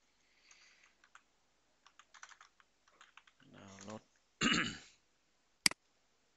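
Typing on a computer keyboard: a quick run of keystrokes about two to three seconds in, then a brief murmur of a voice and a single sharp click near the end.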